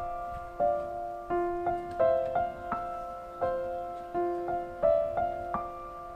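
Background music: gentle piano playing a repeating pattern of notes.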